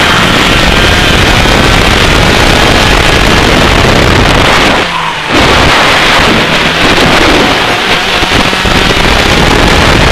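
125cc two-stroke kart engine running hard at track speed, heard from onboard with heavy wind noise on the microphone. The sound drops out briefly about halfway through, then comes back.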